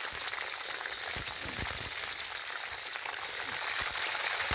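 Whole quails deep-frying in hot oil in a wok: a steady sizzling crackle of bubbling oil, with a few soft low thumps about a second in and a sharp click at the very end.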